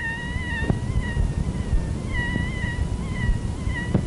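Bronchial leak squeak: a high-pitched, wavering squeak of air escaping through a bronchopleurocutaneous fistula, heard directly over the chest wall without a stethoscope. It comes in several runs over low noise. It is the sign of a bronchopleurocutaneous fistula, its pitch higher the smaller the fistula.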